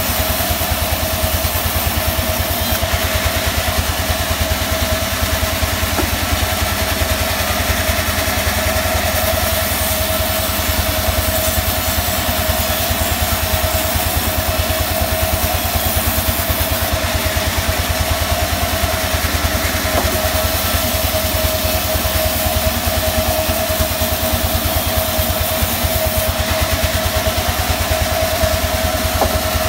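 Sawmill band saw running steadily on its engine, with an even low pulsing and a steady whine over it, while a mahogany log is sawn into boards.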